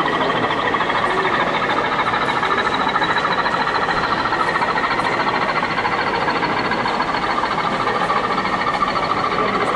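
OO gauge model diesel locomotive hauling a goods train along the track: a steady running noise with a thin high whine that slowly rises in pitch.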